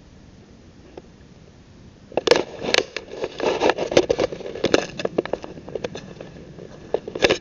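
Handling noise from a small handheld camera being carried: crackling and scraping rubs against its microphone. They start suddenly about two seconds in, come thick for a few seconds, then thin to scattered clicks, with a short loud cluster near the end.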